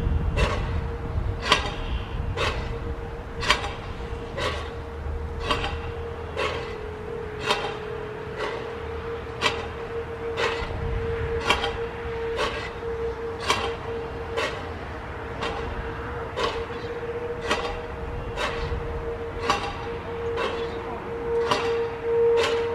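Soundmaster outdoor warning siren's dampers clicking open and shut about once a second as it cycles its high-low signal, over a steady hum. The siren's motor has frozen up in the cold weather, so the rotor gives no wail and only the damper clicks are heard.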